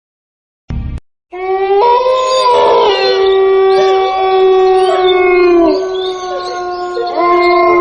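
Several wolves howling together: long held, overlapping howls at different pitches that slide slowly up and down, starting after a short burst about a second in.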